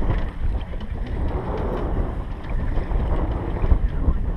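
Wind buffeting the microphone, a steady low rumble, over the noise of a small fishing boat on open water.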